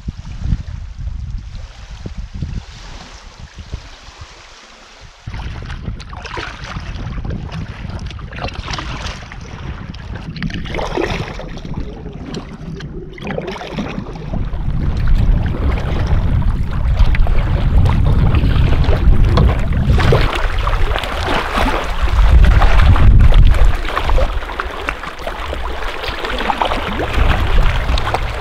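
Wind buffeting the microphone over choppy lake water, with waves splashing; the wind gets stronger from about halfway through.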